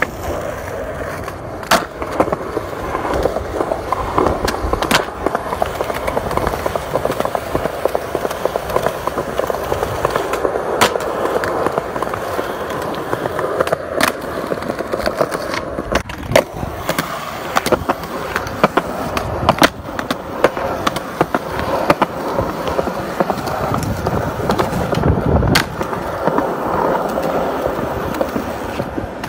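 Skateboard wheels rolling on concrete with a steady grinding rumble, broken by several sharp clacks of the board popping and landing on the ground.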